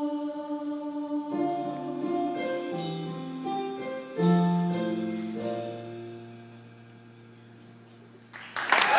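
Children's choir holding a final note, then piano closing chords that ring and die away. Applause breaks out near the end.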